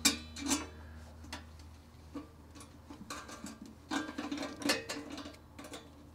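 Light metallic clicks and ticks at irregular intervals as a nut and fitting are handled and threaded on a stainless braided valve-stem extension at a motorhome's dual wheel.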